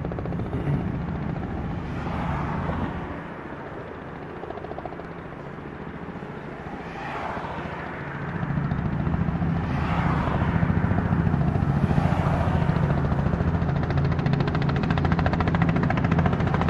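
Robinson R44 helicopter approaching to land: the steady low sound of its rotor and Lycoming 540 piston engine, which grows louder about halfway through as it draws nearer.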